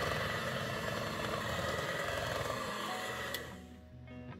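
Electric hand mixer running, its beaters whirring steadily through cream cheese batter in a glass bowl. It stops with a click about three seconds in.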